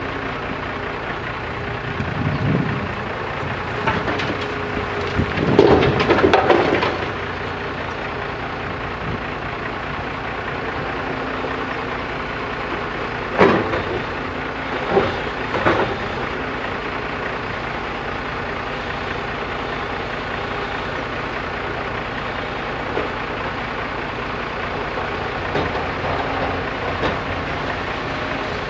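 JCB 3DX backhoe loader's diesel engine running steadily at work. About five to seven seconds in there is a louder rush of noise, and around the middle come three sharp knocks.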